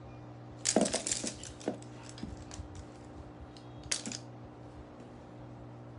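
A few light clicks and taps: a quick cluster about a second in, a couple of single ones after it, and a sharper pair near four seconds. Under them runs a faint steady hum.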